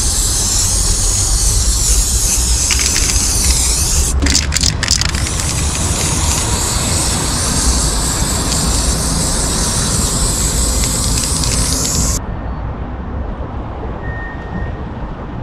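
Aerosol spray can hissing as red paint is sprayed over roofing sealant, with a few short breaks about four seconds in as the nozzle is released. Underneath is a low rumble. The hiss stops abruptly about twelve seconds in.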